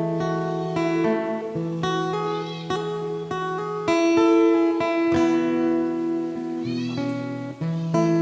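Acoustic-electric guitar playing an instrumental passage of picked notes and chords that ring on, recorded through a BM800 condenser microphone and V8 sound card.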